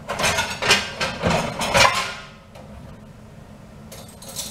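Cutlery and dishes clinking and clattering as someone rummages for a knife, busiest over the first two seconds, with a few more knocks near the end.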